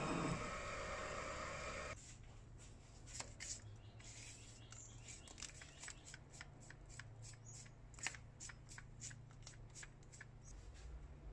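For about two seconds, a drill cutting through a metal clutch plate: a steady whirring that cuts off suddenly. Then a paintbrush sweeps metal chips off the plate, the bristles scratching in quick, irregular strokes over a faint low hum.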